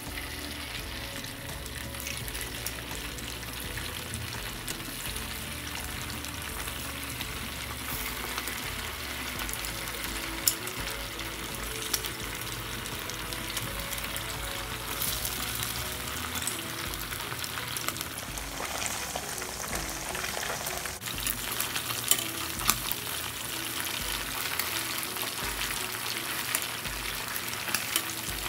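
Food sizzling steadily as it fries in a pan and is stirred, with a few sharp clicks now and then.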